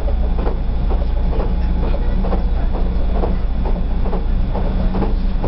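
Inside a moving train carriage: a steady low running rumble with a regular knocking about twice a second.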